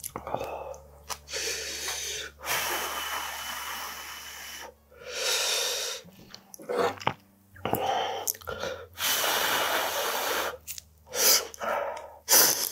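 Mouth sounds of a man eating sea-snail stew: three long, noisy outbreaths of one to two seconds each, with short clicks of eating between them.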